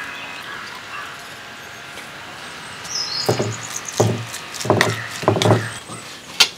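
Spoon mixing chili paste in a clay bowl: a run of five or so scraping, knocking strokes about half a second apart, starting about three seconds in and ending with a sharp click.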